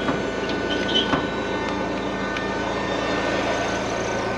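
Forklift engine running steadily at a constant speed, with a few faint metallic knocks from the chain and engine hoist in the first second or so.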